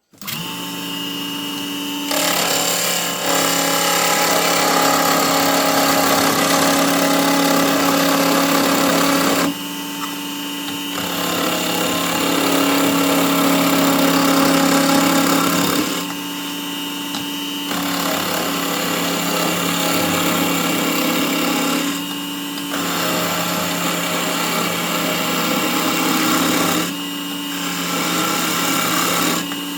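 Small benchtop wood lathe running with a steady motor hum, while a turning chisel cuts the spinning wood in long spells of scraping noise. The cutting breaks off for a second or two every few seconds as the motor keeps running.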